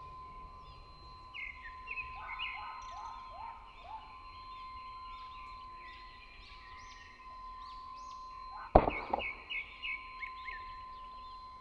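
A single sharp shot from a Sharp Goppul Night Fury hand-pumped air rifle nearly nine seconds in, with a smaller knock just after it. Before and after the shot come runs of short falling chirps over a steady thin high tone.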